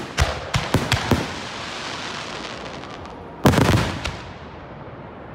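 Aerial firework shells bursting: a quick run of sharp bangs in the first second or so, then a longer, louder burst about three and a half seconds in.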